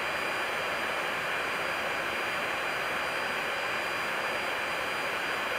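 Airbus A340 flight deck in cruise: a steady, even rushing of airflow and engine noise, with a faint high steady whine running through it.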